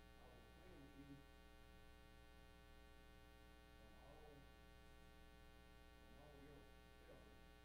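Near silence: a faint voice speaking away from the microphone in three short stretches, over a steady electrical hum.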